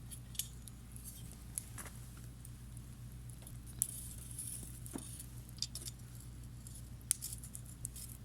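Wood campfire crackling faintly: scattered small snaps and pops at irregular intervals, a few sharper than the rest, over a steady low hum.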